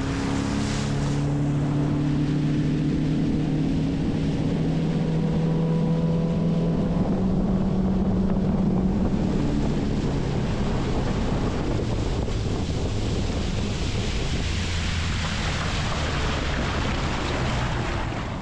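Outboard motor running steadily at cruising speed, with water rushing along the hull and wind buffeting the microphone.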